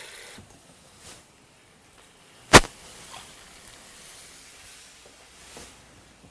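Water running at the kitchen sink fades out just after the start, then a single sharp knock about two and a half seconds in, likely kitchenware being set down or tapped, over faint clatter.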